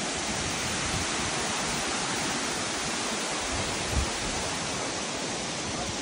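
Steady, even rush of falling water from the Amicalola Falls cascade. A single low thump comes about four seconds in.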